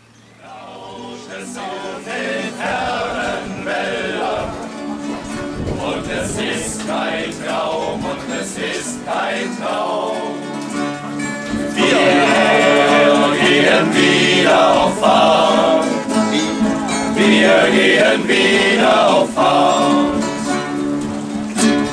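A group of voices singing a song together to strummed acoustic guitars. It fades in at the start and grows louder about halfway through.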